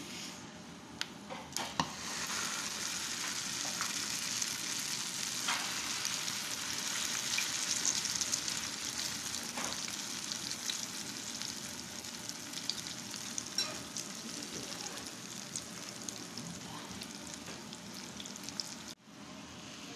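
Carrot-and-egg omelette mixture frying in hot oil in a nonstick pan: a steady sizzling hiss with scattered pops and crackles, louder from about two seconds in, briefly cut off near the end.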